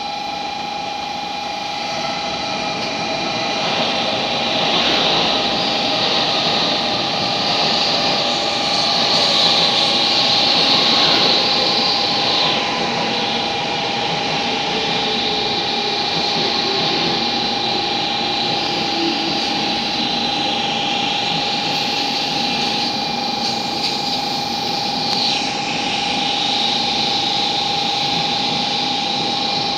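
N700A Shinkansen train pulling in and slowing to a stop, its traction motors giving a whine that falls in pitch as it brakes, over a steady rush of wheel and air noise. A steady tone runs beneath and stops at the very end.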